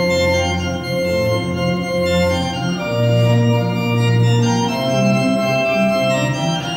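Mixed choir singing slow, sustained chords in a Christmas medley, the harmony shifting about three seconds in.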